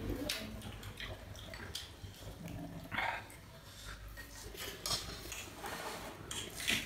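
Close-up eating sounds: chopsticks and a spoon clicking against bowls and a rice pot, with chewing, and a brief higher-pitched squeak about three seconds in.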